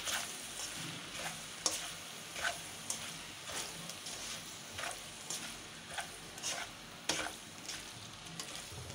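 A spatula stirs and tosses macaroni in a black kadai, scraping against the pan about once or twice a second, over a steady low sizzle of frying as the sauces are mixed through.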